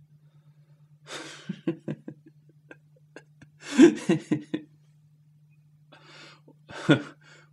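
A man's breathy chuckles and gasps in short bursts, the loudest a run of quick pulses about four seconds in, over a steady low hum.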